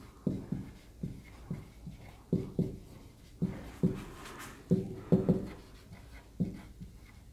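Marker pen writing on a whiteboard: a series of short, irregular strokes and squeaks as letters are drawn.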